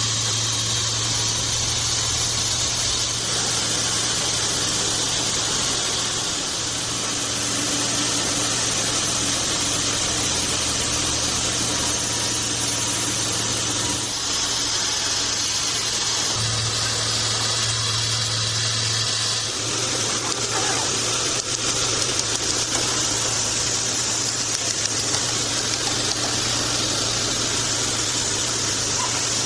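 Band sawmill running steadily, a constant hum under a high hiss, its tone shifting a couple of times partway through.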